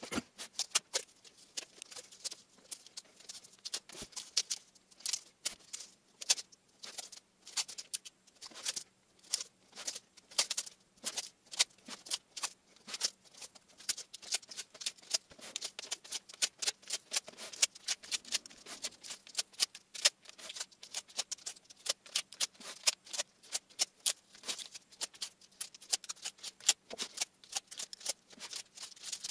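Rapid, irregular small clicks and ticks of close-up handwork, several a second, over a faint steady low hum.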